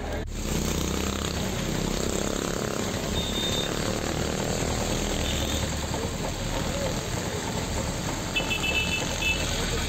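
Steady outdoor background noise: a low rumble under an even hiss, with a few faint short high beeps near the end.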